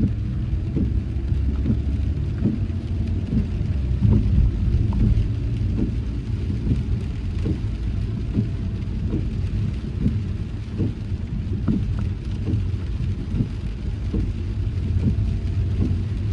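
A car driving in heavy rain: a steady low road rumble with raindrops tapping on the car, about two or three taps a second.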